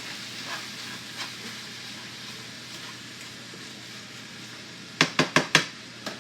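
Ground beef sizzling as it fries in a pan, with a few faint clicks early on. About five seconds in come four quick sharp knocks, the loudest sounds, such as a utensil or container tapping against the pan.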